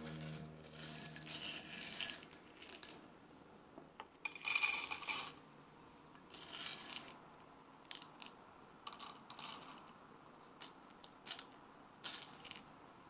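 Whole coffee beans rattling as a scoop digs into a canister of beans and tips them into a dosing ring on a scale. The longest, loudest pour comes about four seconds in; after it, a few scattered clicks of single beans dropping in to top up the dose.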